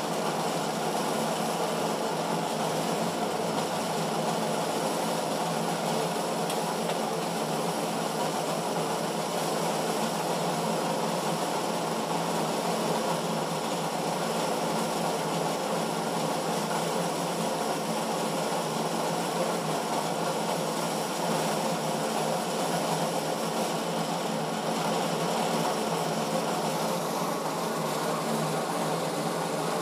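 Diesel injection pump test bench running, driving an Isuzu 4JB1 injection pump under calibration: a steady mechanical hum that holds an even speed throughout.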